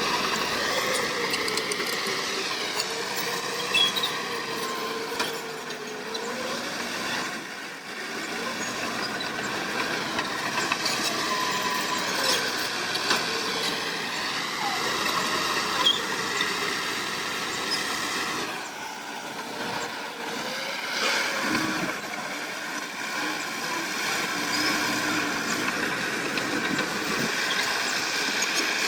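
Diesel engines of heavy earthmoving machinery, a crawler bulldozer and dump trucks, working with their pitch rising and falling as the load changes. High squealing tones run over it throughout.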